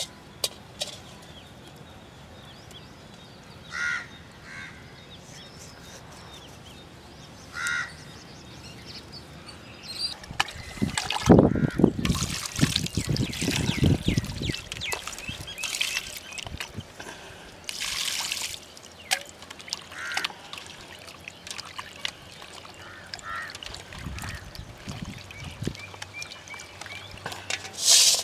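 Water being poured and splashing as raw meat pieces are washed by hand in a steel basin; the splashing is heaviest from about ten seconds in. Crows caw now and then, mostly in the first part.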